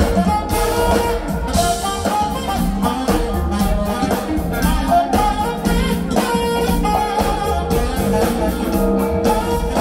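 Live smooth-jazz band playing through a theatre sound system, heard from the audience: saxophone, electric guitar, keyboards and drum kit, with some singing.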